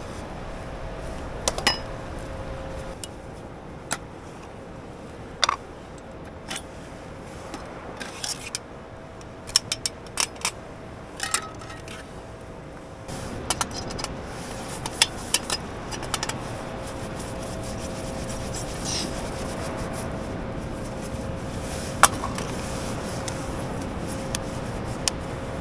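Scattered clinks, taps and scrapes of a metal camping cook pot and stove parts being unpacked and handled. The handling is busiest through the first half or so, with a single sharp clink later on.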